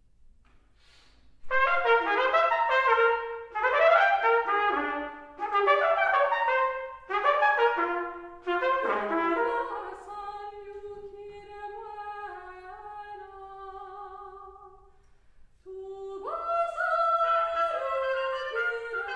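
Solo trumpet playing: four quick bursts of rapid runs, then long held notes, and after a short pause a new phrase that swoops upward near the end.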